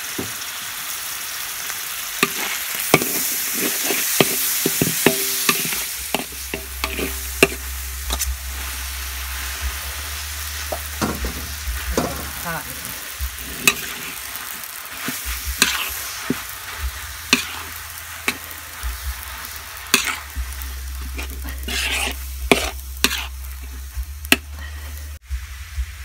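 A metal spatula stirs and scrapes in a steel wok while food sizzles, tossing pork and then thin rice noodles. The sizzle is strongest over the first several seconds. After that, repeated sharp clacks and scrapes of the spatula against the wok stand out.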